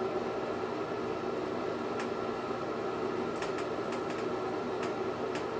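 Steady rushing noise of a lampworking bench torch burning while hot glass is turned in its flame, with scattered sharp ticks from about two seconds in.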